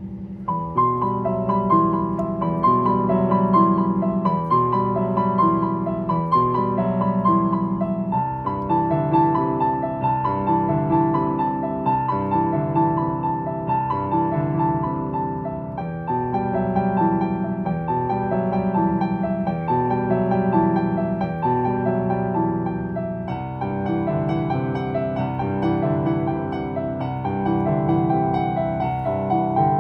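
Digital piano playing a meditative piece: a repeating broken-chord figure in the low and middle register, the chords changing about every eight seconds.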